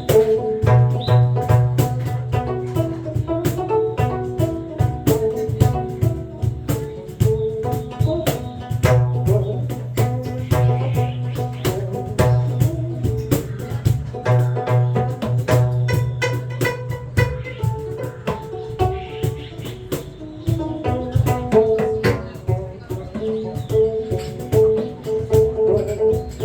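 Live music: quick, dense percussive strikes and clicks over a line of shifting pitched notes, with a low held tone that comes and goes.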